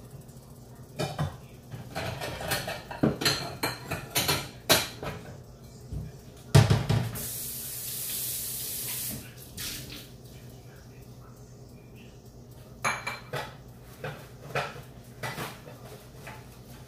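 Dishes and cutlery clattering and clinking in a kitchen sink, with one loud knock about six and a half seconds in. The tap then runs for about two seconds, and more clinking follows near the end.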